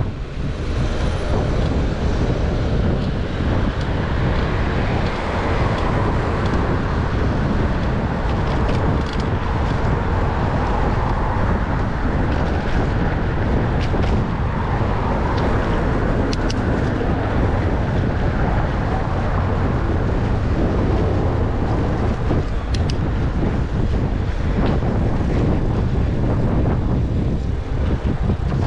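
Road traffic going by, heard from a moving bicycle, with wind rumbling steadily on the microphone. A few brief sharp ticks sound in the second half.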